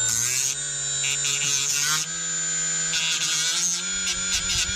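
Red cordless rotary tool whining at high speed, its small wheel pressed against rusty underbody steel to knock the rust off, with scratchy grinding near the start and near the end. The whine winds down at the very end as the tool is let off.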